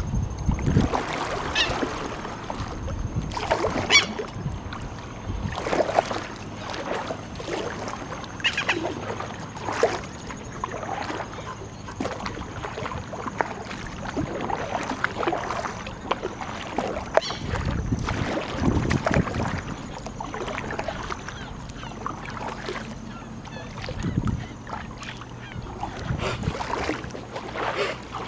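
Kayak paddle strokes: the blades dipping and splashing in the water in an uneven rhythm, a splash every second or two.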